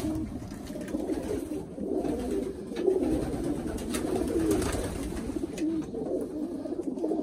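Many domestic pigeons cooing at once, their calls overlapping into a continuous low sound, with a few faint clicks.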